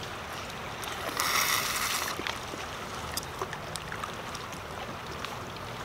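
A slurp from sucking the juice out of a boiled crawfish head, a noisy burst about a second in that lasts about a second, with a few small wet clicks. The steady rush of the river runs underneath.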